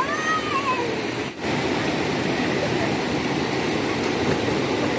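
Waterfall: a steady rush of falling water, with a brief voice in the first second and a short dropout just over a second in.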